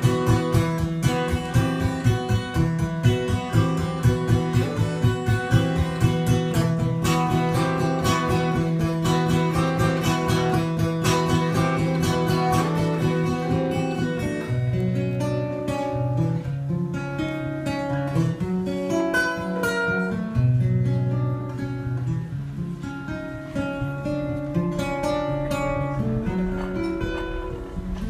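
Solo acoustic guitar with no singing: fast, even strumming for about half the time, then the bass moves lower and the playing turns sparser, with lighter strummed chords and picked notes.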